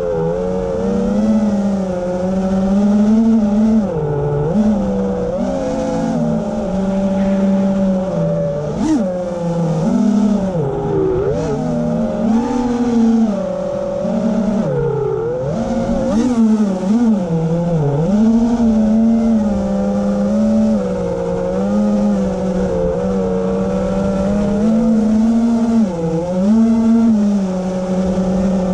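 Small electric propeller motors of a radio-controlled aircraft humming steadily, their pitch wobbling up and down every second or two.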